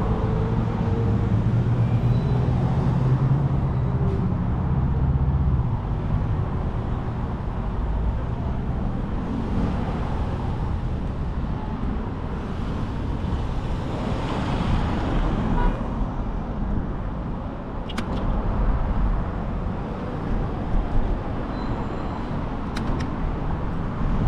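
City street traffic heard from a moving bicycle: a steady rumble of cars, with one vehicle swelling past about halfway through. Two sharp clicks come later.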